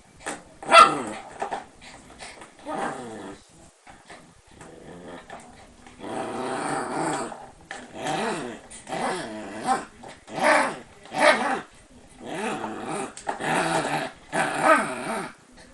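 A Shiba Inu growling and grumbling in a string of short calls, with one longer call about six seconds in.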